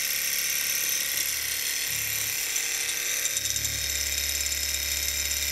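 Small twin-cylinder hot-air Stirling engine running steadily under its alcohol-lamp flame, a continuous rapid mechanical clatter of its crank and pistons. A low hum joins about three and a half seconds in.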